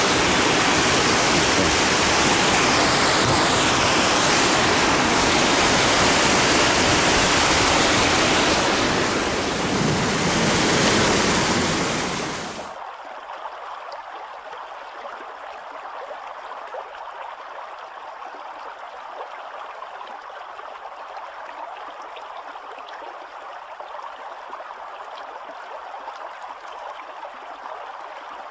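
Stream water rushing loudly over a small cascade. About 13 seconds in it cuts suddenly to the quieter, steady flow of shallow water running over a pebble bed.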